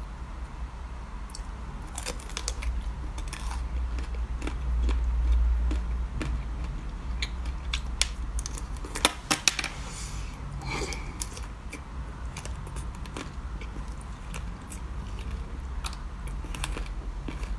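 Close-up crunching bites and chewing of chocolate-coated frozen treats, the hard shell cracking in sharp irregular clicks, loudest about nine seconds in. A steady low hum runs underneath.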